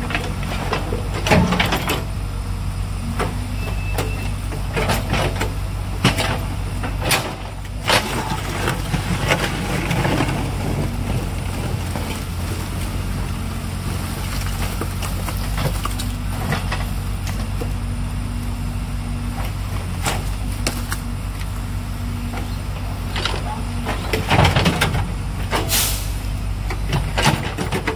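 Diesel engine of a backhoe loader running steadily under work, with scattered knocks and clatter throughout as it loads material. The loudest clatter comes about a second in, around six to eight seconds in, and again near the end.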